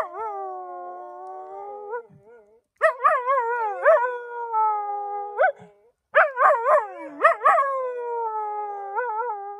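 A dog howling: three long howls, each wavering in pitch at the start and then held, sliding lower toward the end.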